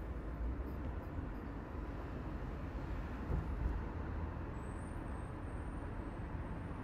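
Steady city street traffic noise of cars and buses running past, swelling slightly about halfway through. A faint high whine comes in about two-thirds of the way through.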